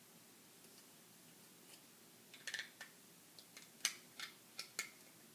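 A run of small, sharp plastic clicks and taps, about eight in two and a half seconds, from LEGO pieces and a sticker sheet being handled while stickers are applied.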